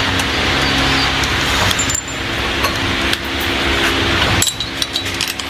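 A steady mechanical hum, with a few light metallic clinks of chain and metal near the end.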